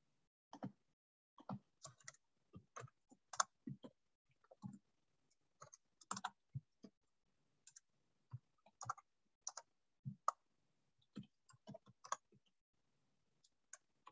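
Faint, irregular clicking of computer keys, two or three clicks a second, picked up by a desk microphone.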